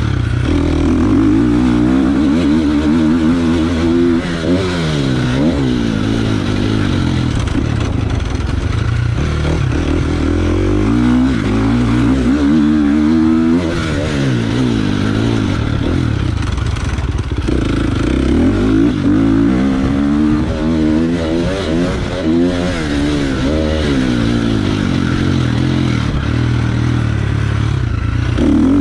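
Motocross dirt bike engine, heard up close from the rider, revving up and dropping off again and again as the bike accelerates and backs off around the track.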